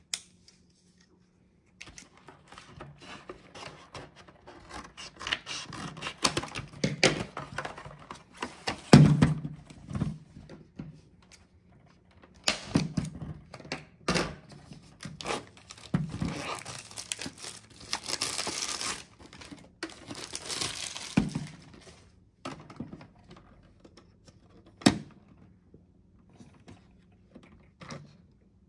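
Plastic wrap being crinkled and torn off a new Brita water filter pitcher, with knocks as the pitcher and packaging are handled, including a long tear about two-thirds of the way through. After that, scattered light clicks of the plastic pitcher and lid being handled, with one sharp click near the end.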